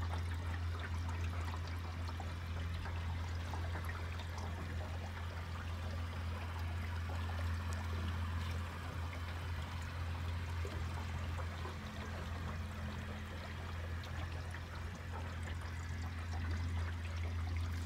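Water trickling and lapping against an aluminum boat's hull, over a steady low hum.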